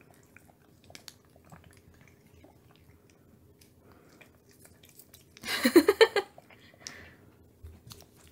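A cat eagerly chewing a treat, with many small quick clicks and smacks. About five and a half seconds in comes a short pitched vocal sound of under a second, louder than the chewing.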